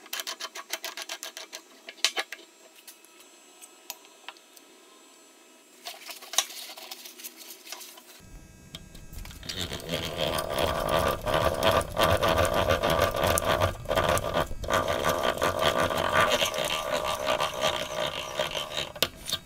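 Metal clicks as an auger bit is fitted into the chuck of a restored 1920s Goodell-Pratt hand-cranked breast drill. From about ten seconds in comes a loud steady whir and grind of the drill's gears being cranked while the auger bit bores into a block of wood, with a couple of brief breaks.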